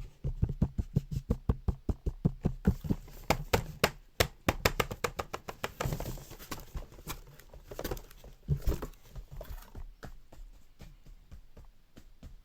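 Rapid, uneven clicking and knocking, several strikes a second, made by hand as a home-performed sound effect. Heavier thumps in the first few seconds give way to sharper clicks, and it grows fainter near the end.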